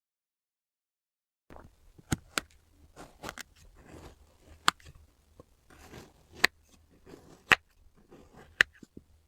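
Kinetic sand being cut and crumbled: soft, quiet crunching that starts about a second and a half in, with about six sharp clicks scattered through it.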